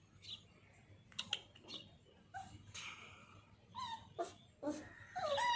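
Puppies whimpering and whining in a wire cage: a string of short whines with a few sharp clicks about a second in, and the loudest, longest whine near the end.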